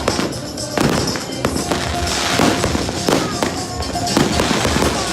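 New Year's fireworks going off in quick succession: many sharp bangs and crackles, several a second.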